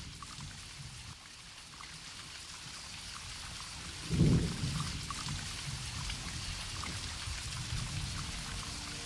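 Steady rain with a short low roll of thunder about four seconds in.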